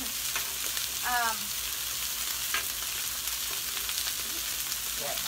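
Chicken wings sizzling on a Blackstone flat-top griddle in a steady hiss, with a few sharp metal clicks of tongs against the griddle as the wings are worked.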